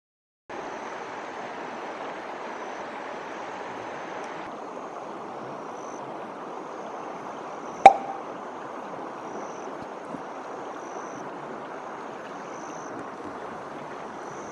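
Steady rushing of a flowing stream, with faint high chirps repeating about once a second above it. A single sharp knock comes about eight seconds in and is the loudest sound.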